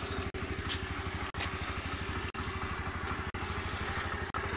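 Peugeot Tweet RS 50 cc scooter's air-cooled four-stroke SYM engine idling steadily, with an even low pulsing.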